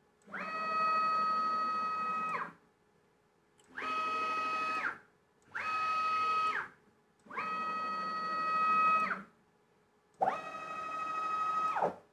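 Closed-loop stepper motors of a CNC-converted Grizzly G0704 mill jogging the table axes: five separate moves, each a steady multi-tone whine. The pitch rises as the motor speeds up at the start of each move and falls as it slows to a stop.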